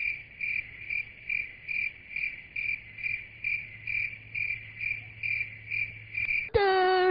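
Cricket chirping sound effect, evenly repeated high chirps about two and a half times a second: the comedy gag for an awkward silence when a question goes unanswered. It cuts off near the end, when a short steady pitched tone sounds.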